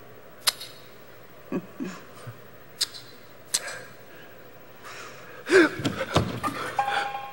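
Quiet stage with a few sparse sharp clicks and light knocks, then about five and a half seconds in a short breathy vocal outburst like a gasp.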